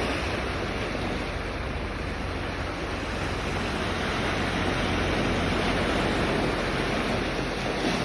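Sea waves washing onto the shore in a steady, even rush, with no single breaking wave standing out.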